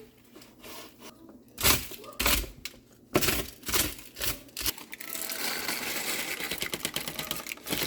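Kitchen clatter while cooking: a few separate knocks, then from about five seconds in a dense, rapid clicking crackle.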